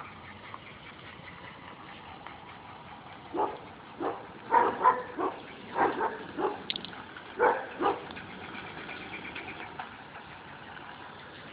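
Car engine idling steadily, an engine the owner says has a rod knock, while a dog barks about a dozen times in short sharp barks between about three and eight seconds in.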